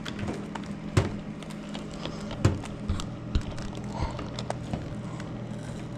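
Scattered knocks and clicks of snack packets and drink bottles being juggled and handled, half a dozen sharp ones, over a steady low hum.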